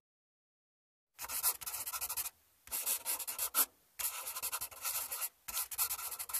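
A pen scratching quickly across paper in four runs of handwriting strokes, with short pauses between them, after about a second of silence.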